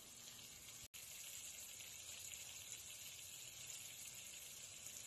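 Near silence: a faint, steady hiss of room tone that drops out for an instant about a second in.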